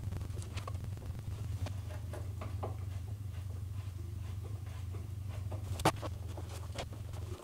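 Hand screwdriver driving screws into the pre-drilled holes of a display case's back panel: faint scattered clicks and scratches, with a sharper click about six seconds in.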